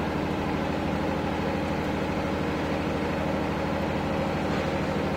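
Steady low droning hum of a running engine, even and unchanging, over which the handling of the beads is not heard.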